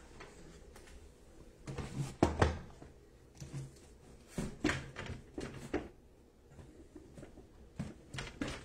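Scattered knocks and clicks, the loudest a pair about two seconds in, with more near the middle and near the end.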